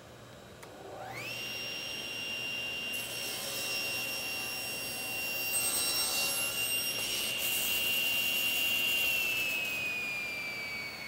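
Table saw motor starting up with a rising whine, then running steady while the spinning blade crosscuts a wooden board, adding a harsh cutting noise for several seconds. About nine seconds in the saw is switched off, and the whine falls in pitch as the blade spins down.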